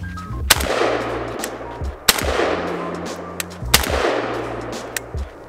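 AK-pattern rifle firing single 7.62 rounds, one shot about every one and a half seconds, each crack trailed by a long echo.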